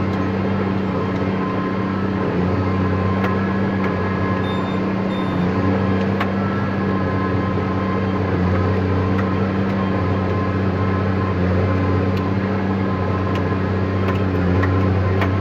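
Tractor engine running steadily, heard from inside the closed cab: a constant low drone with no change in pitch.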